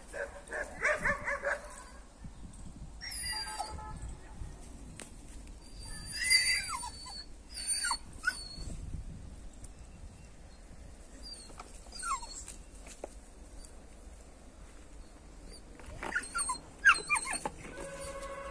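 Dog making short, high yips and whines, several falling in pitch, scattered through with a cluster near the end.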